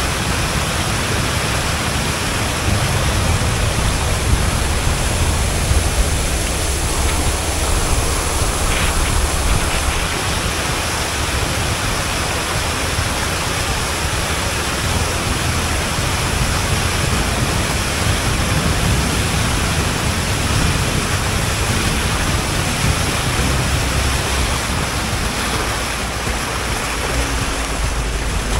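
A river ferry under way: a steady rush of water along the hull over a low, constant engine rumble.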